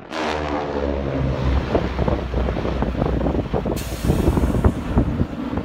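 Engines of a formation of four propeller aerobatic planes droning overhead. The pitch falls over the first second or so as they pass, then settles into a steady drone with rough, gusty noise over it.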